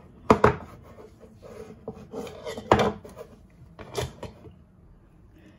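Kitchen utensils knocking and scraping as a spoonful of ghee is added to biryani in a rice cooker pot: two sharp knocks close together near the start, another just before three seconds and one about four seconds in, with softer rubbing in between.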